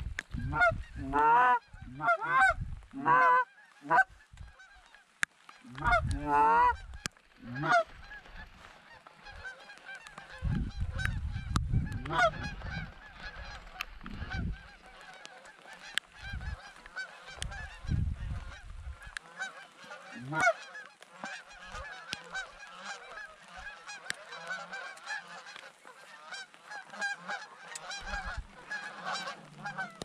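Canada geese honking: a run of loud, close honks for the first eight seconds or so, then the steady, overlapping calling of a large flock farther off.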